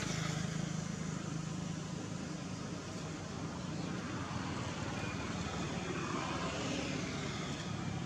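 Steady low hum of a running engine, like a motor vehicle, under even background noise.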